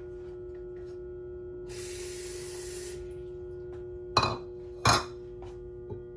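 Kitchen sounds over a steady hum-like tone: a hiss of about a second, then two sharp clinks a little under a second apart.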